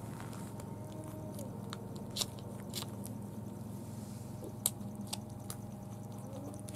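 Newborn puppy suckling at its mother's teat: a few irregular sharp, wet clicks and smacks over a steady low background hum.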